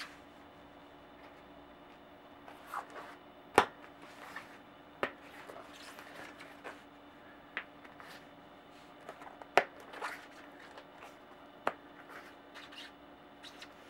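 Hands working a Maxxis Raze cyclocross tyre onto a Velocity A23 rim: rubber rubbing and scraping against the rim at irregular intervals, with a few sharp snaps, the loudest about three and a half and nine and a half seconds in.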